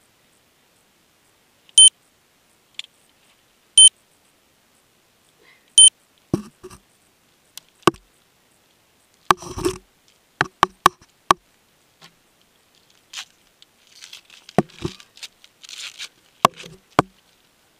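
Three short electronic beeps, two seconds apart, then a string of sharp clicks and brief rattles from hands working on a mountain bike's frame, cable and chain.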